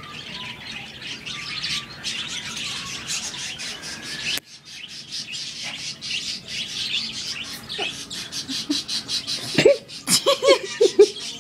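Many small birds chirping busily, a steady stream of quick high chirps. Near the end, a few louder short rising-and-falling vocal sounds.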